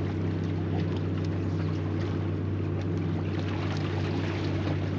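A motorboat engine drones steadily, a low hum that holds without rising or falling.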